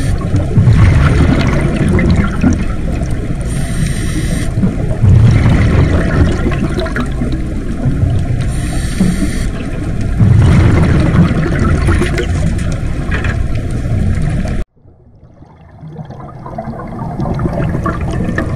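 A scuba diver breathing through an open-circuit regulator underwater: a short hiss on each inhale and a loud gurgling rush of exhaust bubbles on each exhale, one breath every four to five seconds. The sound cuts off suddenly about three-quarters of the way through and then fades back in.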